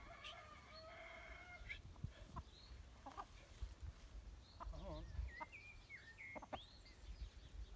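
Young chickens calling. Near the start a young cockerel crows in one long held note lasting about a second and a half; after that come several short squawks that slide upward in pitch.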